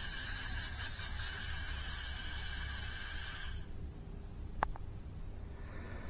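Pressurised gas hissing steadily out of a leak where a home-made CO2 tube joins an HDR 50 valve assembly, despite a new O-ring and Loctite; the owner suspects a hairline crack. The hiss cuts off sharply a little over halfway through, and a single short click follows about a second later.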